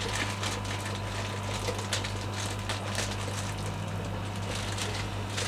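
Clear plastic fish-shipping bag crinkling and rustling in the hands as it is handled and opened, in many small irregular crackles, over a steady low hum.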